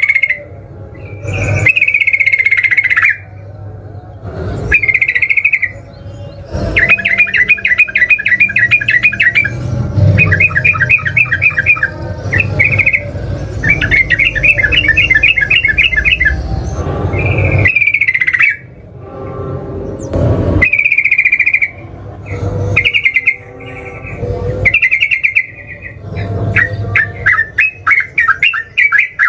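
Yellow-vented bulbul (trucukan) singing: short bubbly phrases alternating with long, fast rattling trills (ngeropel), repeated with brief pauses.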